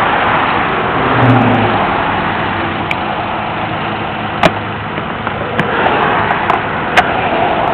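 Car engine running after a jump start, under steady roadside traffic noise, with a few sharp metallic clicks around the middle and near the end.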